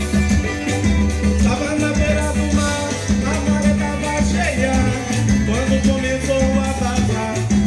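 Upbeat music with plucked string notes over a steady bass line and regular shaker-style percussion, with some gliding melodic notes in the middle.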